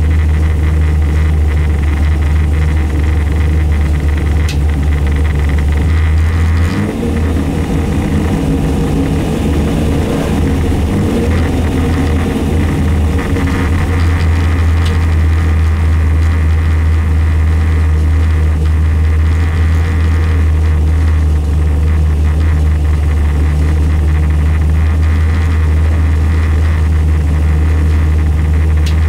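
Shelby Mustang GT350R's engine idling with a steady low drone, heard from inside the cabin while the car stands still. For several seconds partway through, the note turns uneven before settling back.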